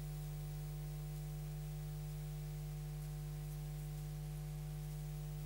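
Steady electrical mains hum on the broadcast sound feed: one strong low tone with a ladder of fainter higher overtones, unchanging throughout.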